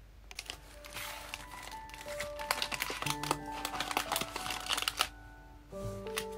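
Packaging crinkling as it is handled: a dense run of small crackles, pausing about five seconds in and starting again near the end, over soft background keyboard music.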